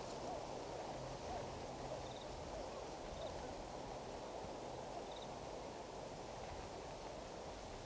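Steady outdoor background hiss with three faint, brief high chirps about two, three and five seconds in.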